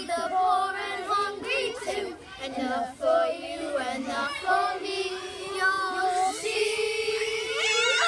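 A group of children singing together without accompaniment, in short phrases that settle into a long held note near the end.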